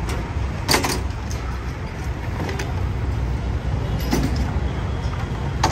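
Street food stall noise: a steady low rumble with four short, sharp clinks spread through it.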